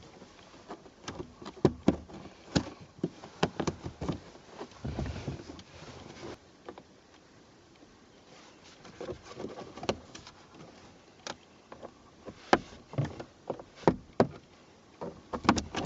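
Irregular clicks, knocks and light rattles of hands and tools working on a car's plastic interior trim, busiest in the first few seconds and again in the second half, with a quieter stretch in between.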